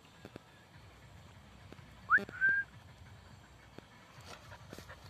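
A short two-part whistle about two seconds in: a quick upward sweep, then a brief level note.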